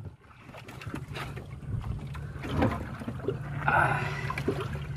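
Knocks and handling noise on a wooden outrigger boat as a speared barracuda is hauled in over the side, with a short rush of water-like noise about four seconds in, over a steady low hum.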